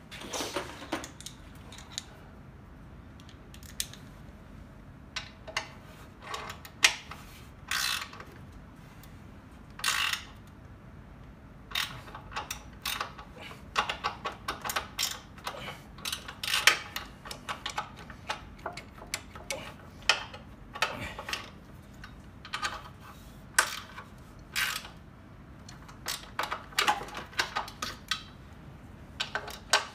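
A wrench tightening the bolts that hold the electric motor to a boiler burner's housing: runs of quick metallic ratchet-like clicks with pauses between.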